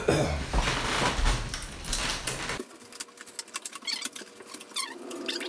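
Packing material being pulled out of a 3D printer's build chamber: rustling, scraping and crinkling of cardboard, plastic and tape. A low rumble cuts off suddenly about halfway through, leaving a dense crackle of small crinkly ticks.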